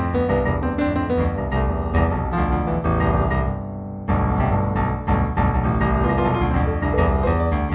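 Solo piano music. Notes die away a little after three seconds in, and a new phrase starts at about four seconds.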